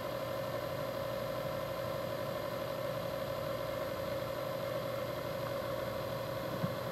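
A steady mechanical hum that holds the same pitch and level throughout, with a faint high whine over it. A light click comes near the end.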